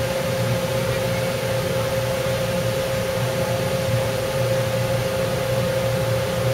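A boat's engine running steadily, heard on board: a constant low hum with a steady high whine over it and an even hiss beneath.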